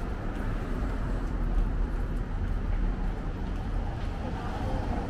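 City street ambience: a steady low rumble of traffic with general background noise.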